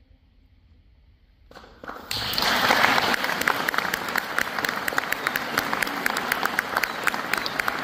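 Near silence for about a second and a half, then an audience starts applauding, quickly rising to full, steady applause.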